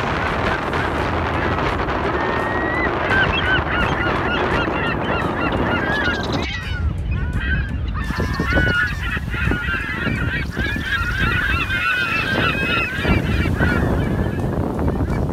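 A flock of birds calling all at once, many short overlapping whistles and chirps, over a steady rush of wind and surf. The rushing drops away for a moment midway.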